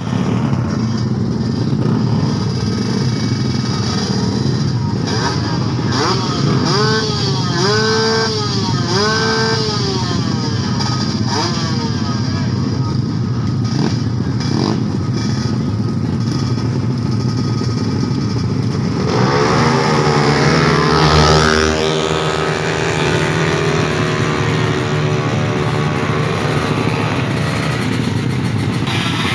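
Small racing motorcycle engines running and revving at a drag race start line, with a run of quick rev blips about seven to ten seconds in and a louder surge of rising revs about twenty seconds in.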